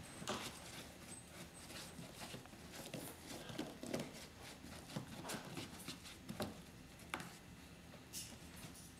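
Brush dabbing and stroking wet glue onto the paper surface of a papier-mâché giant's head: irregular soft taps and wet dabs, with an occasional knock as the head shifts on the bench.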